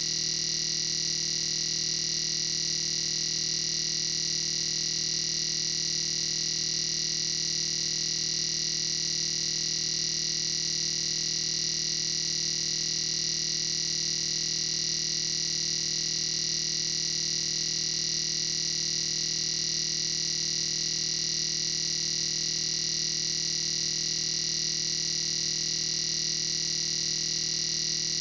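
A steady electronic drone: a synthesizer-like tone held at one unchanging pitch and loudness, with a bright hissy upper part, and no beat or melody.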